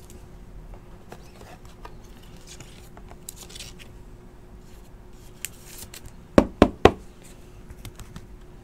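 Soft plastic rustling and sliding as a trading card is slipped into a rigid clear plastic top loader, then three quick sharp knocks close together about six and a half seconds in. A faint steady hum lies underneath.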